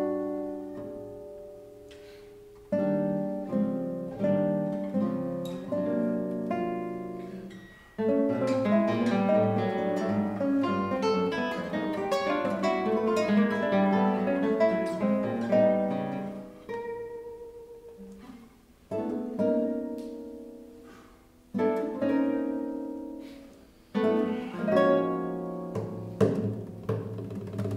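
Two classical guitars playing a contemporary duet. Plucked chords ring and die away, a busy stretch of quick notes fills the middle, then more single chords follow with short fading gaps between them.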